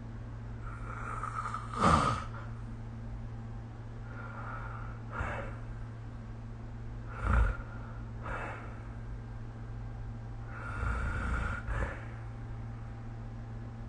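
A sleeping person snoring in irregular breaths a few seconds apart, with two sharp, louder breaths about 2 and 7 seconds in and a longer rasping one near the end. A steady low hum runs underneath.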